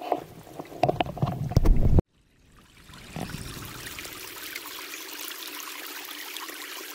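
Rumbling knocks of a handheld camera being moved, then after a sudden cut a shallow creek running steadily over stones, a soft even trickle.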